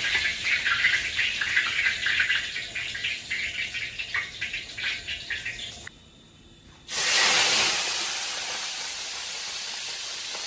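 Cooking in a hot pan: oil sizzling and crackling with many small pops for about six seconds. After a brief drop to near quiet, a sudden loud burst of sizzling settles into a steady sizzle.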